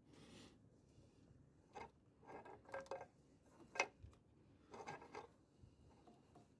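Tools and small metal parts being handled during engine work: a short hiss at the start, then a few scattered clicks and clinks, the sharpest about four seconds in.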